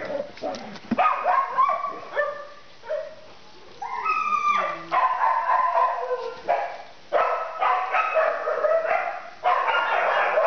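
Dog whining and yipping in a continual run of high calls, with one long sliding whine about four seconds in.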